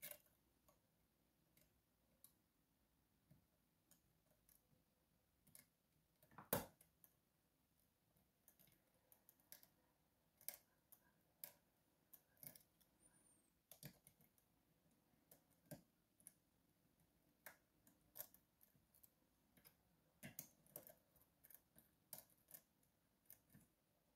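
Faint, irregular metallic clicks and ticks of a lock pick and tension wrench working the sliders inside an Evva 3KS lock. Sparse at first, with one louder click about six and a half seconds in, then coming more often from about nine seconds in.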